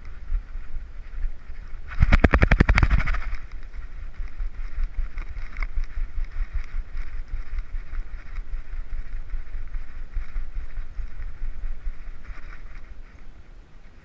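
A harness-mounted action camera on a walking dog, rubbing and knocking against the harness with each step, with a steady rustle throughout. About two seconds in comes a loud, rapid rattle lasting about a second.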